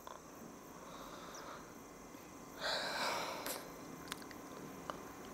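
Quiet room with a single soft, breathy exhale like a sigh about two and a half seconds in, and a few faint clicks.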